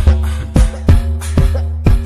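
Background music with a heavy bass line and a steady drum beat, about two hits a second.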